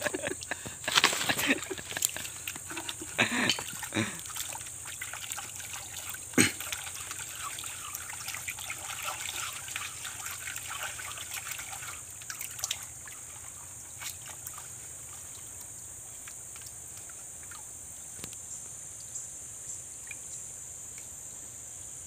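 Muddy water splashing and sloshing as a gold pan is worked by hand in a shallow stream pit, with irregular splashes loudest in the first few seconds. The sloshing grows faint a little past halfway. A steady high insect buzz runs underneath.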